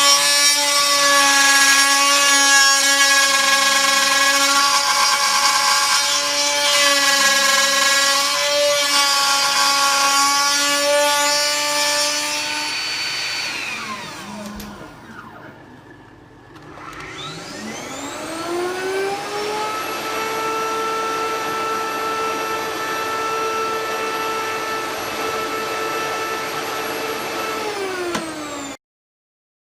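TTA 3020 CNC router spindle whining as it mills wood flooring, with cutting noise. About 13 s in the spindle winds down, then spins back up from about 17 s to a steady whine until the sound cuts off abruptly near the end.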